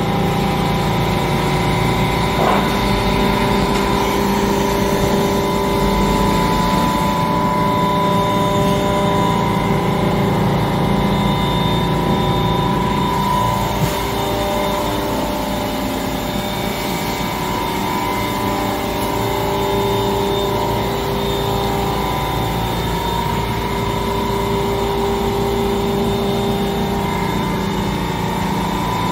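Deckel Maho DMU 50 eVolution CNC machining center running: a steady machine hum carrying several whining tones.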